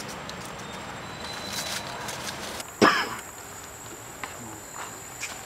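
A macaque gives one short, loud cry about three seconds in. A thin, steady, high insect whine runs under it.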